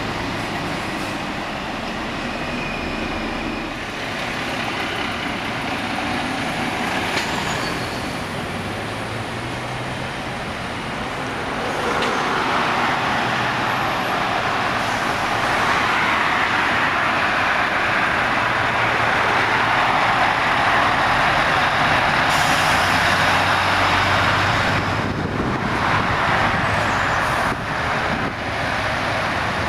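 Road noise from a convoy of heavy lorries: diesel engines and tyre hiss on a dual carriageway. About twelve seconds in it grows louder and stays up as a line of Scania tractor units approaches.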